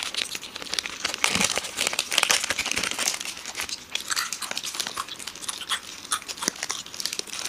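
Foil chocolate-bar wrappers crinkling as they are handled and opened, mixed with chewing and crunching of chocolate close to the microphone. The crackling goes on throughout in dense, irregular clicks.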